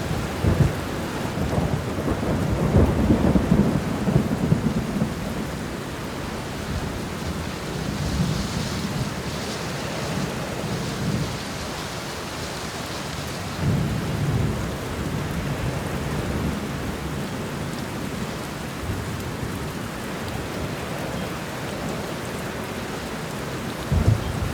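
Steady heavy rain with rolling thunder: low rumbles swell a few seconds in, again about halfway through, and briefly near the end.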